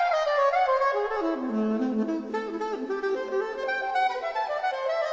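Background music: a single melodic wind-type instrument playing quick runs, sweeping down to low notes about a second in and then moving in a busy line around the lower register.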